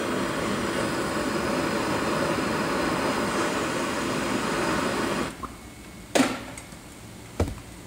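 Hand-held gas torch running steadily with a hiss as it heats a connecting rod's small end to expand it for a press-fit wrist pin, then shut off about five seconds in. Two short sharp knocks follow.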